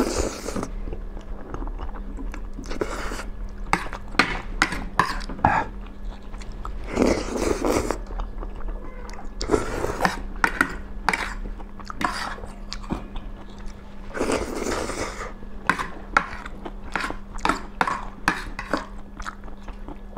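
Two people slurping and chewing instant noodles: several loud slurps of about a second each, among many short smacks and clicks of chewing and of forks against the plates.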